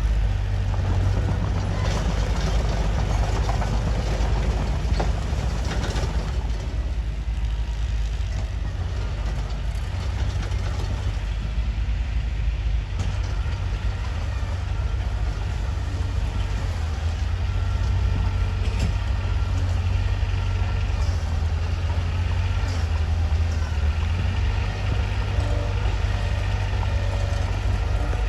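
Mitsubishi bulldozer's diesel engine running steadily with a deep low drone, with scattered clanks in the first few seconds.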